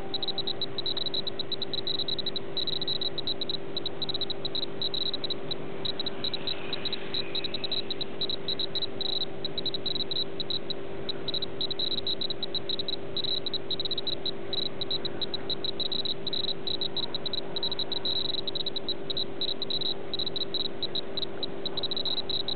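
Insects trilling in a fast, steady high-pitched pulse, over a constant low hum.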